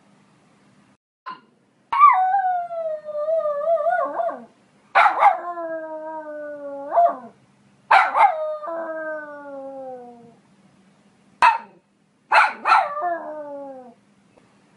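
Poodle barking and howling. Four long calls each start with a sharp bark and trail off into a drawn-out howl that slides down in pitch. Two short single barks come between them.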